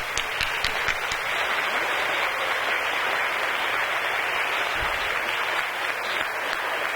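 Audience of schoolchildren and adults applauding steadily, individual claps standing out most in the first second or so.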